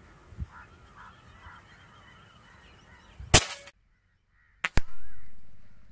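Birds calling in the background, then about halfway through a single sharp .177 air rifle shot. A moment later come two quick sharp cracks close together, followed by a sound that fades away over about a second.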